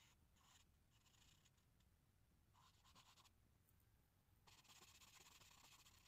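Charcoal stick scratching faintly across drawing paper in several short strokes, then a longer stretch of shading near the end.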